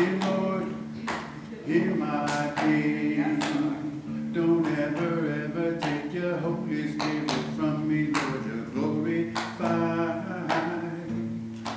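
Voices singing together over a steady held low tone, with a sharp clap or beat about every two seconds.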